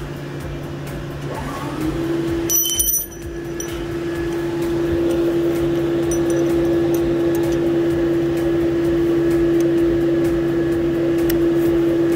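Steady mechanical hum of a motor that speeds up about two seconds in and then runs at an even pitch, with a short high ringing tone around three seconds in.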